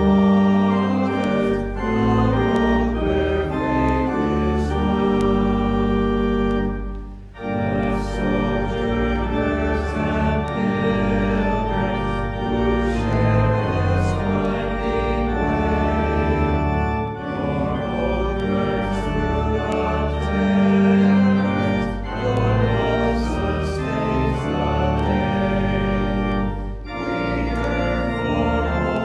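Church organ playing hymn music in long held chords, phrase after phrase, with a short break about seven seconds in.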